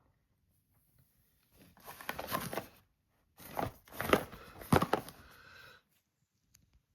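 Packaging of a new alarm clock being handled and opened, crinkling and rustling in two bouts with sharp crackles, the second longer than the first.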